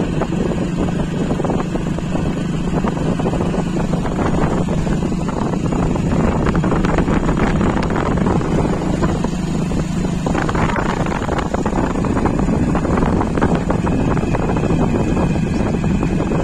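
Hero Honda Splendor motorcycle's single-cylinder four-stroke engine running at a steady riding speed, with wind buffeting the microphone.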